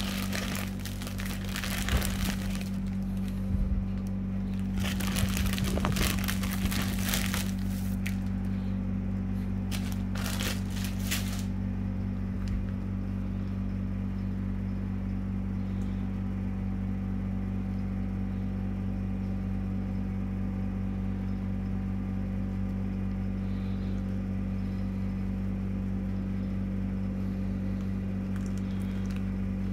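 Clear plastic sheet crinkling under hands in three short bursts during the first dozen seconds, over a steady low hum that goes on throughout.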